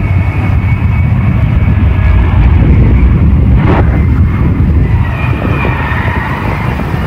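Lockheed Martin F-35 Lightning II's single jet engine running loud and rough as the jet spins out of control on the runway after a failed landing. One sharp crack comes about three and a half seconds in.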